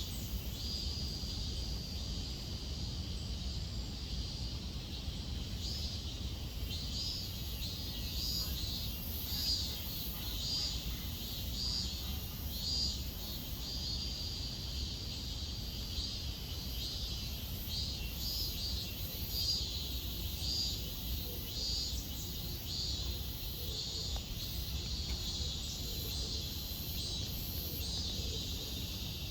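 Cicadas singing in high, rhythmic pulses, a little more than one a second, with two stretches where the call turns into a long held note. A low steady rumble lies underneath.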